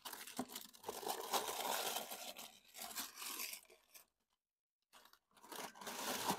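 Paper packaging in a shoebox rustling and crinkling as it is handled, for about four seconds, then again after a pause of about a second near the end.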